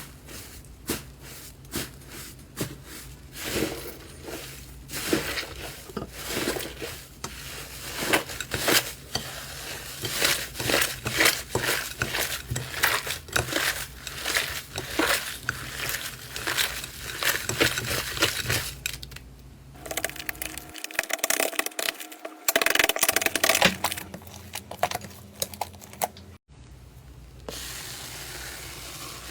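Slime being squeezed and pressed by hand, making quick runs of wet crackles and pops that change in character twice, about two thirds of the way through and again near the end.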